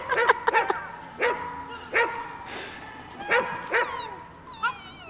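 Small dog barking repeatedly in short, sharp barks, with a few high falling yelps near the end.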